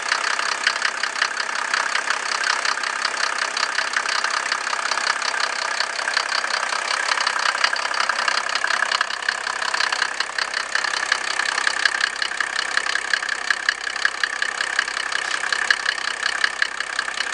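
Mercedes W124 300TD's six-cylinder turbo diesel idling steadily with an even, rapid diesel clatter, on its first run after a period of non-use.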